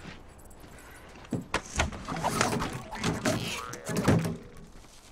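An RV's outside utility compartment hatch being opened and handled, a series of clunks and knocks over a few seconds, the loudest about four seconds in.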